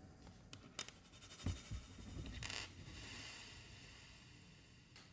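Small plastic parts of a toy LED light being handled and fitted: a few light clicks, then a short scrape, each trailing into a long, heavy reverb from an effect on the microphone.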